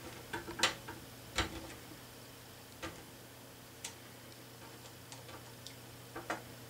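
A few scattered light clicks and ticks of a small screwdriver driving a screw into the plastic roof frame of a 1/8 scale model car, over a faint steady hum.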